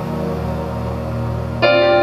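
Electric keyboard playing a held, sustained low chord; about a second and a half in, a louder, brighter chord comes in and holds.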